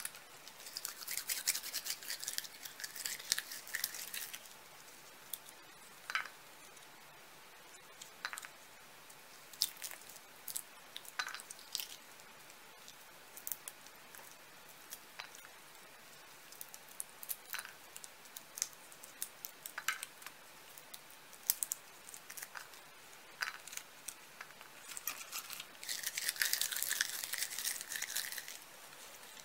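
Cooked acorns being worked by hand: two long scratchy, crackling stretches of shell scraping and breaking, near the start and near the end, with scattered sharp little snaps in between.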